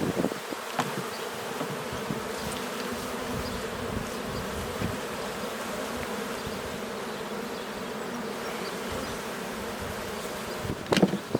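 Honeybees buzzing steadily in a swarm around an opened hive. A few knocks of hive equipment being handled come near the end.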